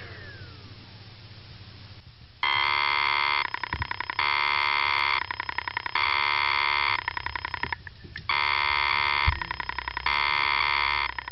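Damaged hard disk drive buzzing in repeated attempts. A steady electric buzz about a second long alternates with a faster stuttering rattle. It starts about two seconds in, with a brief pause past the middle.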